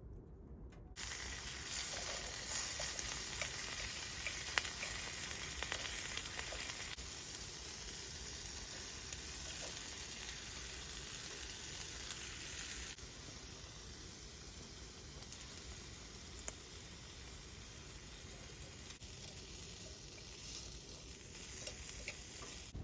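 Food sizzling as it fries in a hot pan: a steady hiss with small pops and crackles.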